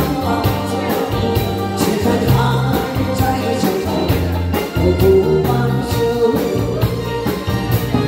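Woman singing a pop ballad through a microphone and PA, with band accompaniment on guitar, keyboard and drums keeping a steady beat.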